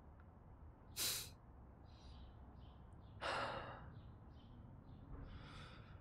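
A man's breathing, close to the microphone: a short sharp breath about a second in, a longer breath around three seconds in, and a softer one near the end.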